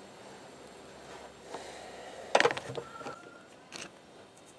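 Hands handling and bending electrical cable and wires: a cluster of sharp clicks and rustles a little past halfway, then one more click near the end.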